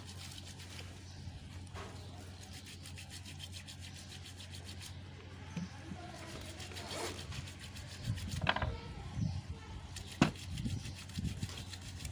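Handling noise of a Beretta 9mm pistol being cleaned: a cloth rubbing over the gun, then a few sharp knocks in the second half as the pistol and a brass cleaning rod are handled on the cloth-covered table, over a steady low hum.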